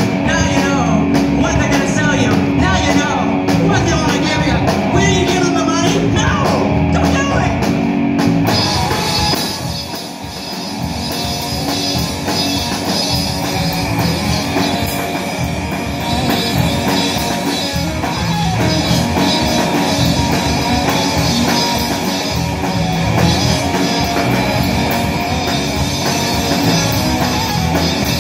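Live rock band playing: electric guitars and a drum kit, with singing. The band drops back briefly about ten seconds in, then builds up again.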